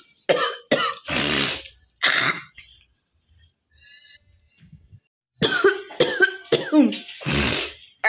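A woman coughing on purpose in quick harsh runs: several coughs in the first two seconds or so, a pause of about three seconds, then another run near the end that finishes with a longer, drawn-out cough.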